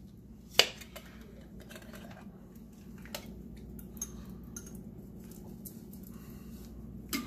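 Glass sauce jar clinking against the rim of an enameled cast-iron Dutch oven as marinara is poured over frozen meatballs. One sharp clink about half a second in, a few lighter taps after, and another clink near the end, over a steady low background.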